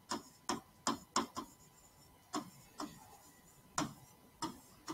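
Stylus tapping and clicking against a writing surface while words are handwritten: about ten short, sharp clicks at uneven intervals, several coming in quick succession.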